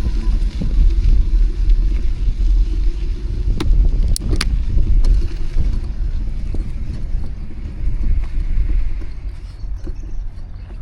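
Low, buffeting rumble of wind on the microphone and city street traffic, heard from a bicycle riding along the road. A few sharp clicks come about four seconds in, and the rumble eases near the end.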